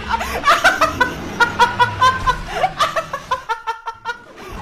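High-pitched laughter in rapid bursts of several a second, thinning out near the end.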